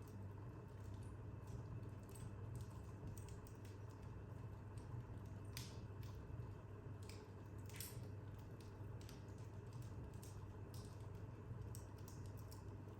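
Wood fire crackling in a fireplace: faint, irregular pops and ticks, with two louder snaps about six and eight seconds in, over a steady low hum.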